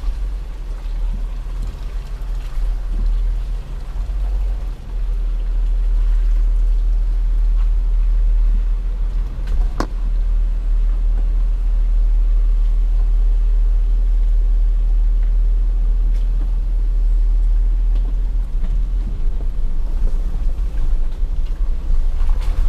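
Off-road vehicle driving slowly, a steady low rumble, with a single sharp click about ten seconds in.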